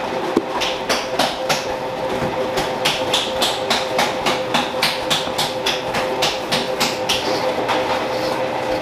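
Spatula scraping and knocking against a stainless steel mixing bowl in quick, regular strokes, about three a second, as meringue is folded into almond flour for macaron batter. A steady machine hum runs underneath, and the strokes stop about seven seconds in.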